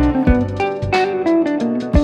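Background music: a guitar plays a melody of plucked notes over a bass line and a steady beat.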